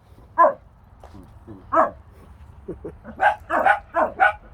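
Dog barking: a single bark about half a second in, another a little before two seconds, then a quick run of barks over the last second and a half.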